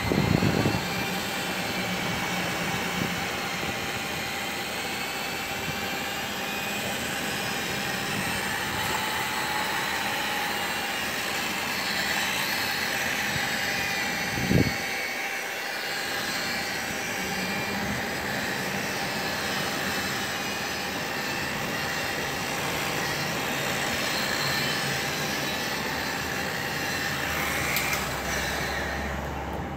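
Electric rotary polisher with a wool buffing pad running steadily against a boat hull: a constant motor whine with a faint steady hum. There are two brief knocks, one right at the start and one about halfway through, and the sound drops off at the very end.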